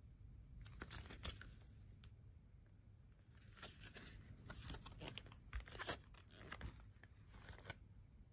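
Faint rustling, crunching and light taps of a cardboard vinyl LP jacket being handled and flipped over, in short scattered bursts that are loudest about two-thirds of the way through.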